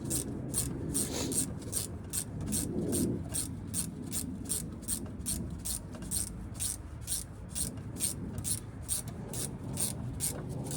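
Ratchet wrench clicking at an even pace, about four clicks a second, as a brake caliper bolt is run in. The clicking stops shortly before the end.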